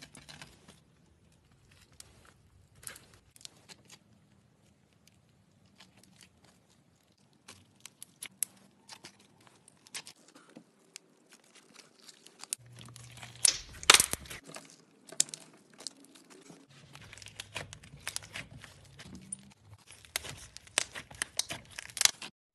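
Slime being squeezed and stretched by hand, making scattered crackling and popping sounds, with a loud cluster of pops about two-thirds of the way through and a dense run of crackles near the end.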